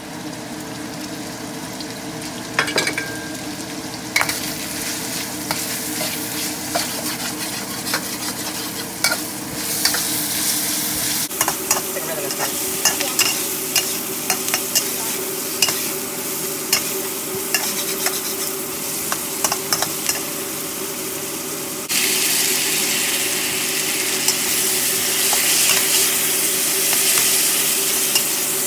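Diced onion sizzling in a hot steel wok, stirred and scraped with a metal spatula that clicks and scrapes against the pan many times. The sizzle grows louder in steps, most sharply about three-quarters of the way through.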